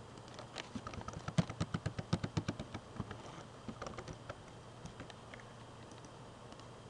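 Computer keyboard keys tapped in a quick run as a string of digits is typed, thinning out to a few scattered clicks in the second half.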